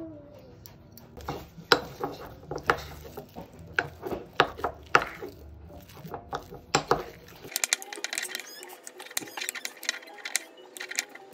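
A string of irregular sharp clicks and knocks, followed by a quicker run of lighter clicks and clinks after a change in the sound about two-thirds of the way in.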